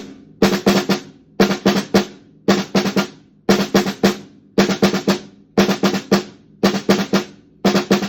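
Drum warm-up: a drum struck in short groups of three or four quick strokes, about one group a second, in a steady repeating pattern.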